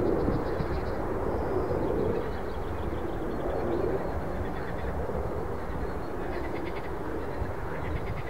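Jet airliner noise, a steady rumble that dies down a little about two seconds in as the aircraft moves away. Faint rattling animal calls come through it several times.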